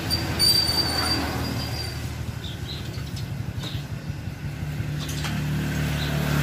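An engine running with a steady low rumble that grows louder toward the end, with a thin high whine from about half a second to two seconds in.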